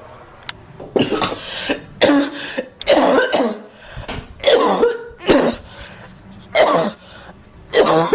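A girl coughing repeatedly: a run of about eight short, loud coughs, roughly one a second.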